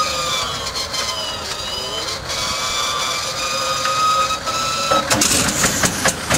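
Pratt & Whitney R-1830 Twin Wasp radial engine of a B-24 Liberator being cranked over by its starter, a whining tone that sags and then rises as the propeller turns slowly. About five seconds in, the engine fires and catches with a ragged, irregular run of loud pops and bangs as it starts.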